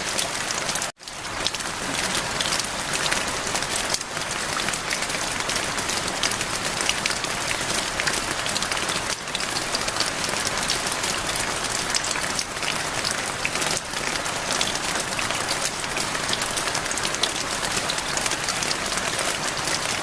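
Steady rain: a dense hiss of drops pattering on surfaces, mixed with running water. The sound drops out for a split second about a second in, then resumes.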